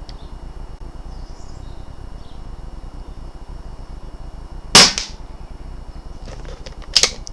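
A single shot from a BSA R10 pre-charged pneumatic air rifle firing a 15-grain .177 slug: one sharp crack nearly five seconds in, over a steady low hum. A few light clicks follow near the end.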